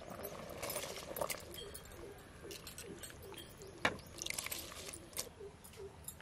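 Soaked seeraga samba rice being squeezed out of its soaking water and dropped by the handful into a pot of spiced water, with water dripping, small clicks and splashes, and a sharper knock about four seconds in. A bird calls in short repeated notes in the background.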